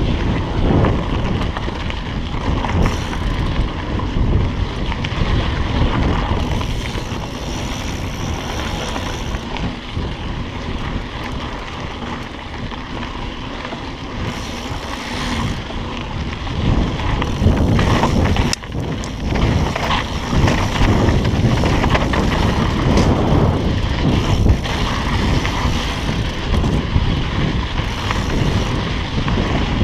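Wind buffeting the microphone on a mountain bike riding fast down dirt singletrack, mixed with the tyres rolling over the dirt and knocks from bumps in the trail.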